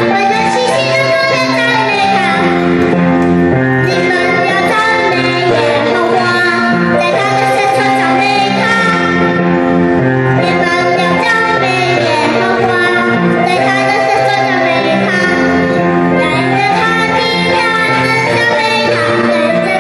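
Music with singing: a young boy sings into a handheld microphone over a recorded backing track.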